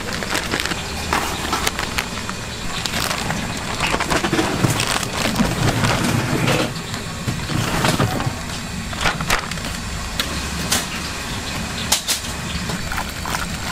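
Crinkling of a large plastic bag of frying powder being cut open and handled, the powder poured into a big aluminium pot, then a wire whisk scraping and clicking in the pot near the end, with many short clicks over a steady low rumble throughout.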